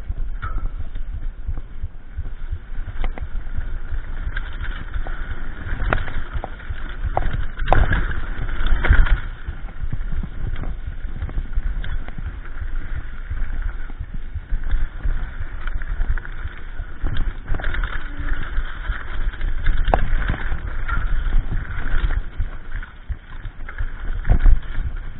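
Mountain bike ridden fast over rough dirt singletrack: a constant rattle and clatter of the bike and tyres on rocks and ruts, with wind rush on the camera and sharp knocks at the bigger bumps, the hardest about nine seconds in and near the end.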